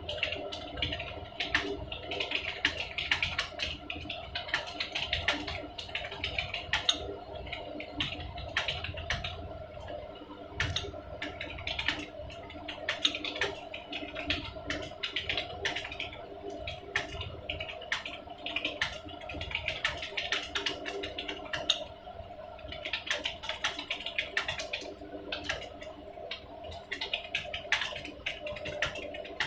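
Fast, continuous typing on a computer keyboard, with a brief lull about two-thirds of the way through. A steady hum runs underneath.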